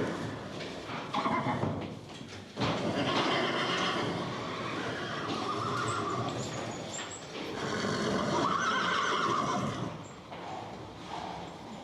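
Horse neighing and whinnying, several loud calls in a row.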